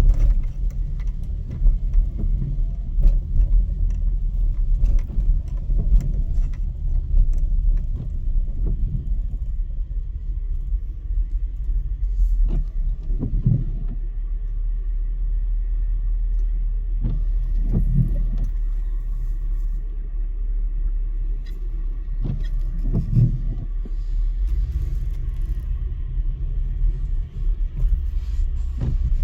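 A car on the move: a steady low road rumble of engine and tyres, with a few louder low swells in the second half.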